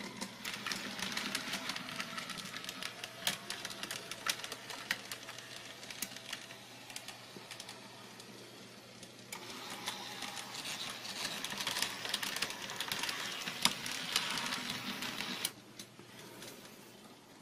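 HO-scale model trams running on their track: small electric motors whirring and wheels clattering over rail joints in a fast stream of clicks. The sound swells again partway through, then cuts off suddenly near the end, the abrupt stop typical of relay-switched automatic control.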